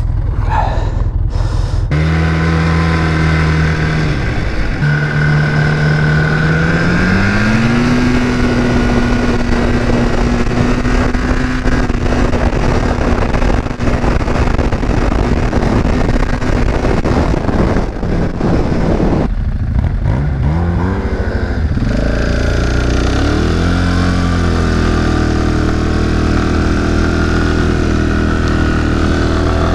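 ATV engine running under throttle. Its pitch rises as it accelerates a few seconds in, holds steady, drops off about two-thirds of the way through, then settles into a steady run again, with wind noise over the microphone.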